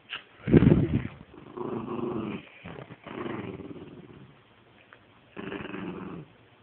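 Small rat terrier–Chihuahua mix dog play-growling in four bursts during a game of tug of war with a stuffed toy, the first growl the loudest.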